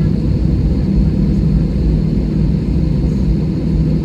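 Steady low rumble and hum of an airliner on the ground with its engines running, heard from inside the cabin during a long taxi and hold before take-off.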